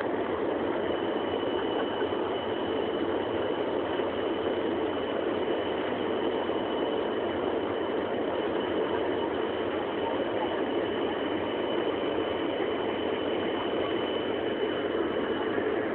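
Steady roar of an Airbus A320's jet engines and rushing air as heard inside the passenger cabin on approach, with a thin steady high whine over it that stops near the end.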